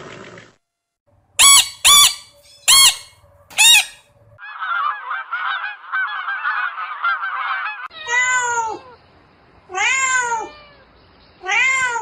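Four short, sharp calls, then a flock of geese chattering with many overlapping calls, then a cat meowing three times, each meow falling in pitch.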